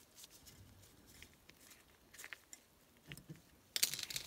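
Faint handling of a metal lightsaber hilt and a small hex key: a few light ticks, then a short rattle of clicks near the end as the key is set down on the mat.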